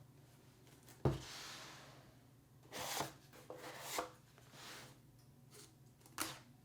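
Computer parts being handled during a PC build: a sharp knock about a second in, then rubbing and scraping, and a short click near the end.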